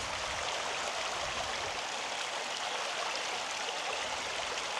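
Flowing water rushing with a steady, even hiss.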